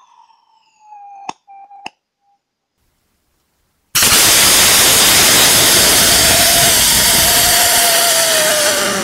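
Two sharp clicks, then about four seconds in a small homemade ethanol and gaseous-oxygen rocket engine starts abruptly with a loud, steady roar and a faint whistle that slowly falls in pitch.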